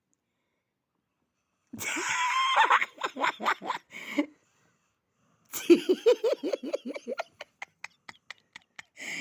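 A person laughing in two bursts, after a silent start. The second burst trails off into quick, short breaths of giggling.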